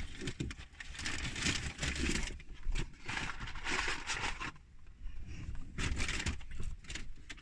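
Paper burger wrapper rustling and crinkling as food is handled close to the microphone, in irregular bursts with a short lull partway through.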